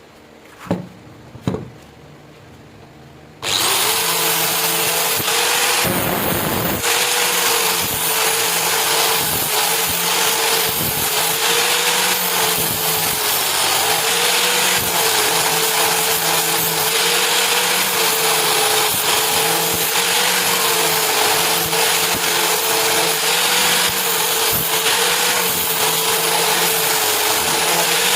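A few light knocks, then an electric power tool switches on about three and a half seconds in and runs steadily, its pitch wavering slightly.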